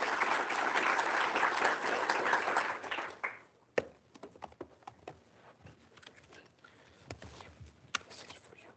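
Audience applauding, dying away about three seconds in, followed by a few scattered quiet knocks and clicks.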